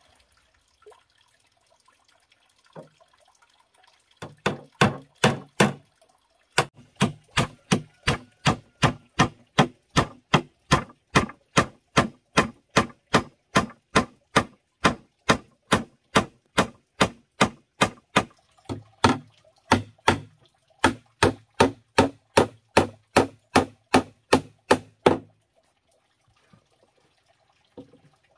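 Small hammer striking wooden boards while building a nest box: steady, even blows about two to three a second, some with a hollow wooden thud. The blows start about four seconds in, pause briefly near six seconds, and stop a few seconds before the end.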